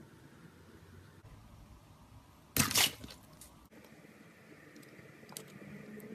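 Slime handled by hand, with one short, loud crackling pop about two and a half seconds in, and a few faint clicks near the end.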